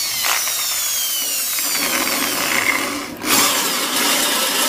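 Electric drill boring holes through the galvanized sheet-steel top of an amplifier case, with a high whine that falls in pitch as the bit cuts. The drilling stops briefly about three seconds in, then starts again on the next hole.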